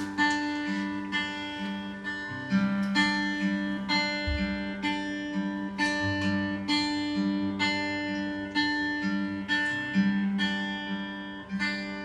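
Acoustic guitar playing a song introduction: chords struck about twice a second, each ringing and fading, dying away near the end just before the singing comes in.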